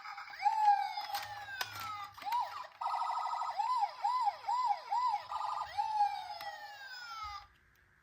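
Several toy ambulance and fire truck sirens sounding at once: overlapping wails, long falls in pitch, a fast warbling yelp and a run of short repeated whoops. A few clicks sound early on, and the sirens cut off shortly before the end.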